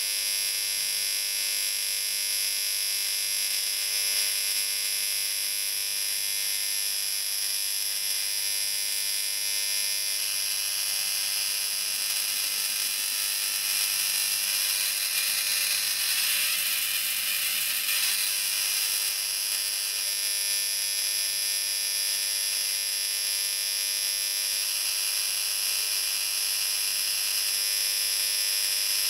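High-voltage electric discharge arcing through magnesium shavings between two electrodes: a steady, high-pitched electrical buzz, rougher and more crackly for a few seconds in the middle.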